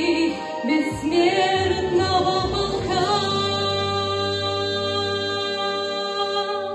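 A woman singing a song over a recorded backing track. From about three seconds in, the music settles onto a long held final chord.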